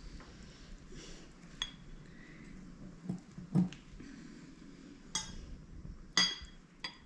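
Cutlery clinking against a plate while eating, a handful of separate sharp clinks, the loudest about five and six seconds in.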